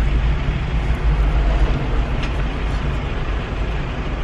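Inside a moving car with the windows down: steady road noise and wind noise coming in through the open windows, a constant low rumble.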